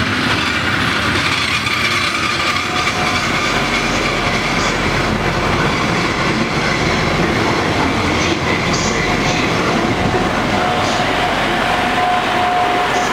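Train rolling past on the rails: a new Pesa ATR220 multiple unit being hauled by an E.652 electric locomotive, with steady wheel-on-rail rumble and scattered clicks over the rail joints. A thin steady squeal joins about ten seconds in.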